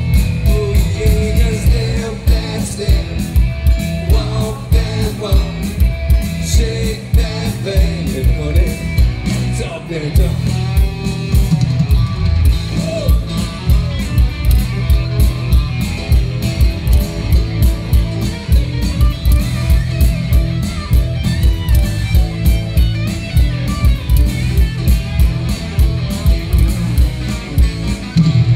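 Country band playing live through a PA: electric guitar over drums with a steady beat.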